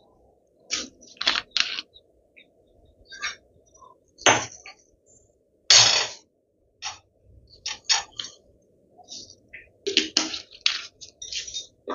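Hot mustard oil in a kadai crackling and spitting in irregular sharp pops, some loud and some faint, as it comes up to frying heat.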